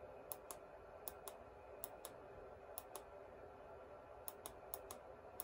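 Faint, irregular light clicks, a few a second, over a low steady hum.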